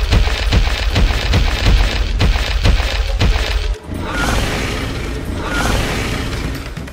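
Dubbed-in monster sound effects: a heavy low rumble with regular thudding stomps, about two or three a second, then, from about four seconds in, a long hissing blast like a monster's breath-beam, with two short squeaks in it.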